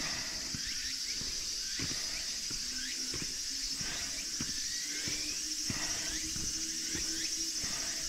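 Footsteps of someone walking on a mountain road, with a steady high drone of summer insects and short falling chirps that repeat every half second or so.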